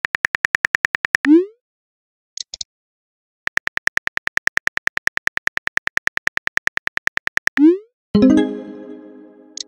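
Phone-keyboard typing sound effect: rapid, evenly spaced clicks at about eight or nine a second, broken by rising whooshes of a message being sent, about a second in and again about 7.5 seconds in. A short high blip comes between them, and near the end a pitched electronic chime rings and fades, like a message-alert tone.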